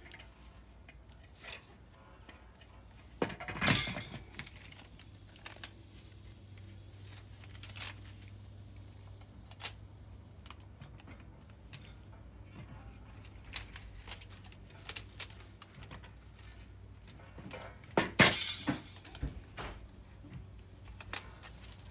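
Hands working with tape on a muffler repair: scattered small clicks and knocks, with two louder ripping, crackling bursts about 4 seconds in and near the end as tape is torn off and pressed on. A faint steady low hum lies underneath.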